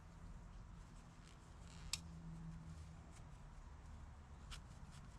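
Faint handling sounds of a rag being rubbed gently over a throttle body, with light ticks, a sharp click about two seconds in and a softer one near the end, over a low steady hum.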